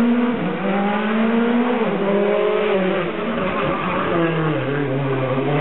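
Rally car engine revving hard through the bends of a special stage. Its pitch rises and falls with throttle and gear changes, dipping low near the end before climbing again.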